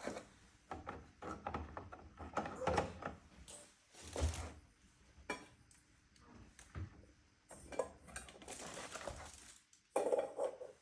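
Irregular clatter, knocks and scrapes of kitchen items being handled, a few sharp knocks among softer rustling and scraping.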